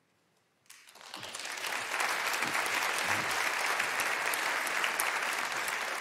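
Audience applauding: the clapping starts after a brief silence less than a second in, swells to a steady level and begins to fade near the end.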